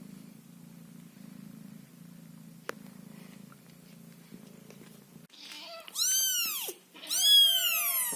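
A cat purring steadily. A little over five seconds in, the purring gives way to a very young Scottish fold kitten mewing twice: loud, high-pitched cries that rise and then fall, each about a second long.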